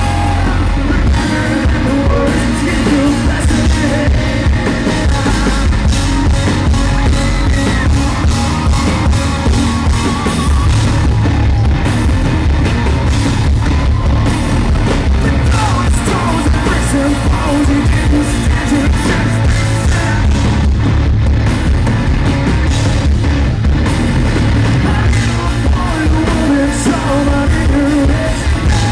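Live rock band playing loudly with a lead singer, recorded from the audience.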